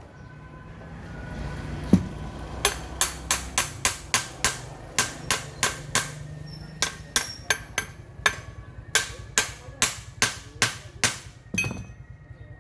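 Hammer striking metal: a single duller thump about two seconds in, then a long run of sharp, ringing blows about three a second, broken by a couple of short pauses, stopping shortly before the end.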